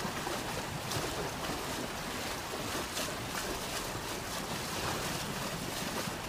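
Steady rush of water splashing as hippopotamuses run through shallow lake water.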